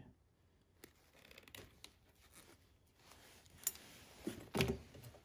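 Faint scraping and clicks of wire strippers pulling the insulation off the ends of electrical wires, with a louder short knock near the end.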